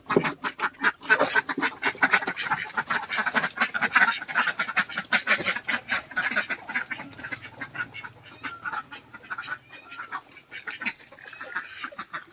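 Domestic ducks quacking in quick, overlapping calls, many a second, thinning out over the last couple of seconds.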